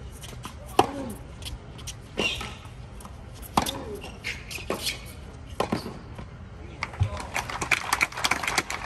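Tennis rally on a hard court: rackets strike the ball and the ball bounces, sharp hits about a second apart. Near the end, scattered clapping as the point finishes.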